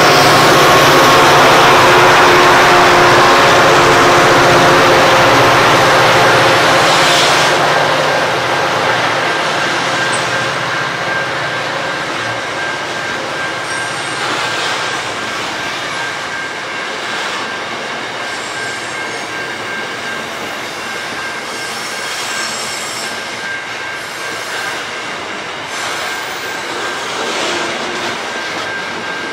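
Freight train passing close by. A diesel locomotive's engine drones for the first several seconds and fades. Covered hopper wagons then roll past, with a steady high-pitched wheel squeal and an occasional clatter of wheels over the rail joints.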